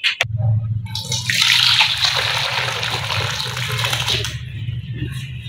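Thick fish-head broth poured from the steel pressure cooker into a pan, a splashing pour that starts about a second in and thins out after about three seconds, over a steady low hum.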